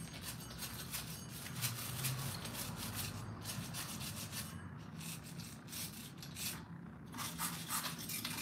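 A stiff hand brush scrubbing a chainsaw part clean, giving rapid scratchy strokes in three runs with short pauses between.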